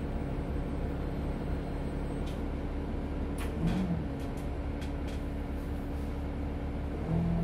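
Isuzu Citiport 18 articulated bus engine running steadily at low revs, heard from inside the bus, with a few light clicks midway. Near the end the engine note steps up and gets louder as the bus starts to pull away.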